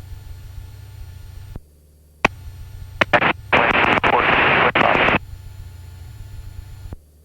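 Aircraft radio audio over a low steady hum: a few sharp clicks, then a burst of static lasting about a second and a half near the middle, as a transmission is keyed without clear speech.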